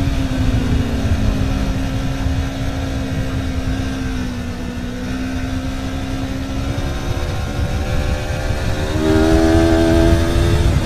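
Aprilia Tuono motorcycle engine running on a race track. Its pitch drops at the start, holds lower and fairly steady for several seconds, then rises and grows louder near the end.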